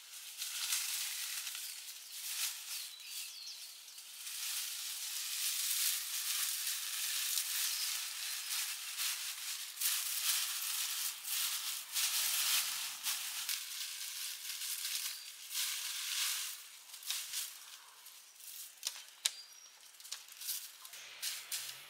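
Dry rustling and crackling with many small clicks, a little quieter after about two thirds of the way through.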